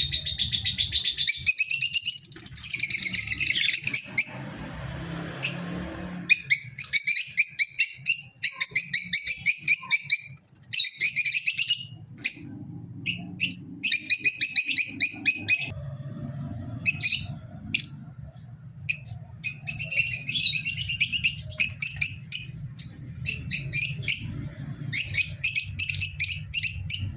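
Lovebirds chirping: quick, high, chattering chirps in repeated bouts with short pauses between them, over a faint low hum.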